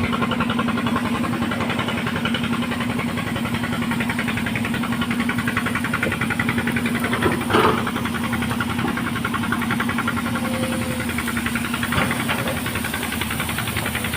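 Excavator's diesel engine running steadily, with a fast, even pulse and a short louder noise about halfway through.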